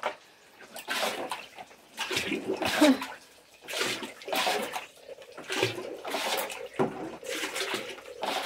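Floodwater being bailed off a tiled floor with a plastic dustpan and poured into a metal bucket: splashing in repeated bursts, about one scoop a second.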